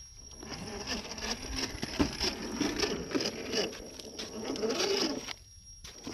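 RGT EX86120 1/10-scale RC crawler driving over rocks: its electric motor whines and wavers in pitch as the throttle changes, with tyres and chassis clattering and clicking on stone. It eases off briefly about five and a half seconds in.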